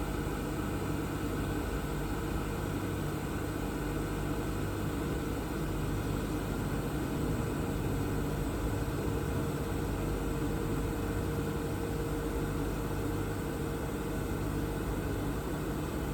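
CNC machining centre running under power, a steady mechanical hum with a few held tones over a low rumble and hiss.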